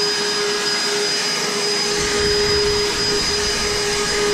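Battery-powered EGO backpack leaf blower running steadily: a rush of air over a constant electric motor whine.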